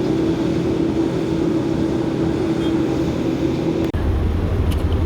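Steady drone of an ATR 72-600's turboprop engines heard inside the passenger cabin, with a strong steady tone. About four seconds in it changes abruptly to a lower, heavier hum.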